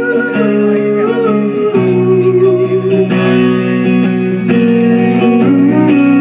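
Live band music led by guitar, playing held notes that shift in chords every second or two.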